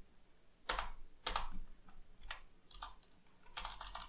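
Computer keyboard keys being pressed: separate, irregularly spaced keystrokes, with a quick run of several near the end.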